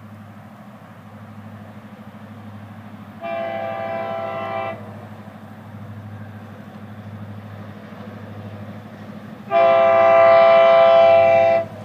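Diesel freight locomotive's air horn sounding two blasts for a grade crossing: a shorter one about three seconds in and a longer, louder one near the end. Beneath them runs the steady low rumble of the approaching train.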